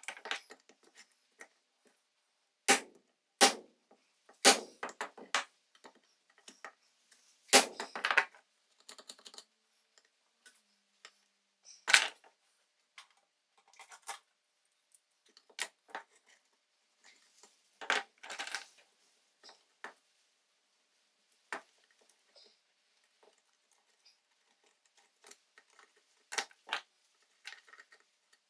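Irregular metal clicks, clinks and knocks of hand tools and small metal parts being handled and set down on a wooden workbench while an old blowtorch's burner is taken apart, with a few sharper knocks scattered through.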